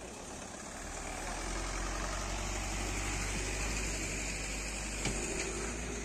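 Passenger bus engine running close by, a steady low rumble, as the bus pulls away along the road. A short click about five seconds in.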